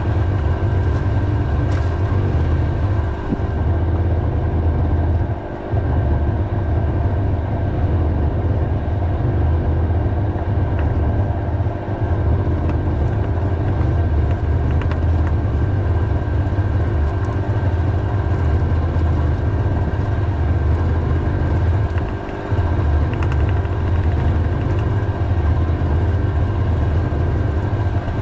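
An engine running steadily with a strong low hum and even, unchanging pitch; its level dips briefly twice.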